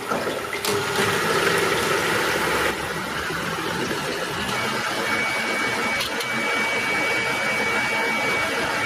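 Bosch 450 W electric hand mixer running steadily, its beaters whisking egg whites in a plastic measuring jug and beating them into a stiff white foam. A thin high whine joins the motor's steady sound about halfway through.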